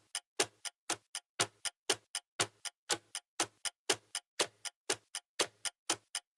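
Clock ticking steadily, about three crisp ticks a second, alternating louder and softer in a tick-tock pattern.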